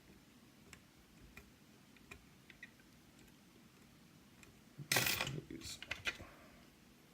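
Faint, scattered clicks of a lock pick working the pins and sliders inside a Yale Superior lock, then a brief loud clatter of metal clicking about five seconds in.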